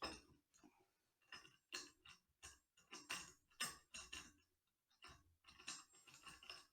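Faint, irregular clicks and light knocks, about two a second, from the metal desk clamp of a Tonor T30 boom arm being handled and fitted onto the desk edge.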